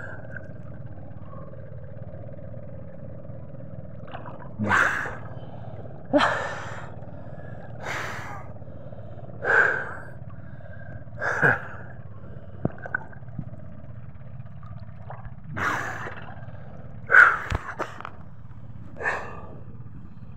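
A diver in the water breathing hard: loud, short breaths about every one and a half to two seconds, with a pause of a few seconds about midway.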